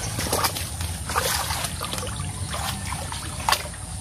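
Splashing and trickling of shallow muddy stream water as people wade and grope with their hands in the mud for freshwater mussels: irregular small splashes, with a sharper splash about three and a half seconds in.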